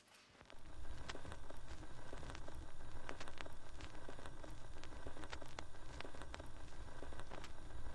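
Old wooden tabletop radio crackling with static after being switched on: a steady hiss with a low hum, sprinkled with irregular clicks and pops, coming up about half a second in.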